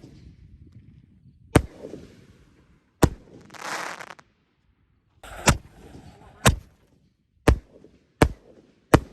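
Consumer fireworks going off: about seven sharp bangs spaced roughly a second apart, some followed by a short crackling hiss.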